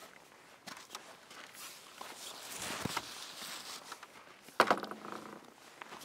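Footsteps of a person walking on a path, with a rustling swell in the middle and a single sharp knock about four and a half seconds in.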